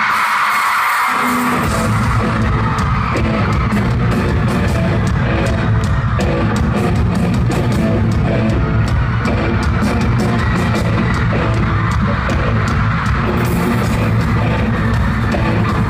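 Live pop-rock band playing loud, with drums, bass and electric guitar, recorded from within the audience. The crowd is screaming at the start, and the full band comes in about a second and a half in with a steady drum beat.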